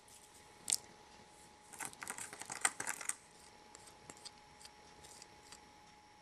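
Light plastic clicks and scrapes from a toy replica-cooking set being handled. There is one sharp click about three quarters of a second in, then over a second of quick clicks and scrapes as water and dough powder are stirred in a small plastic cup, then scattered light taps, over a faint steady tone.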